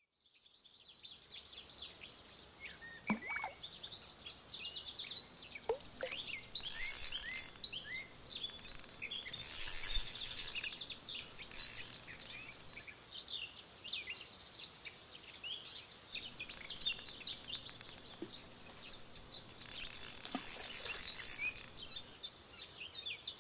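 Outdoor ambience fading in from silence: many small birds chirping and singing throughout, with insects chirring in high, fast-pulsed bursts of a second or two, five times.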